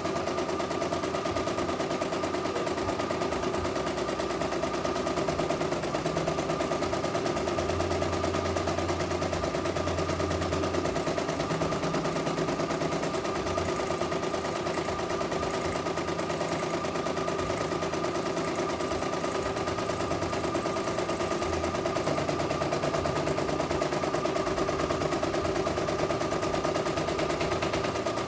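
CNY E900 portable embroidery machine stitching out a design: the needle runs in a fast, even clatter over a steady mechanical hum as the hoop carriage moves the fabric.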